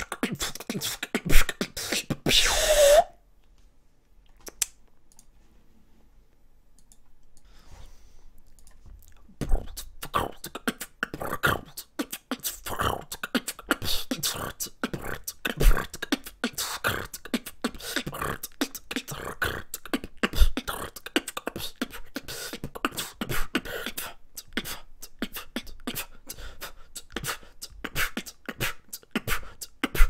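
A man's mouth noises in the manner of beatboxing: rapid clicks, pops and percussive sounds. They stop about three seconds in and start again after a gap of about six seconds.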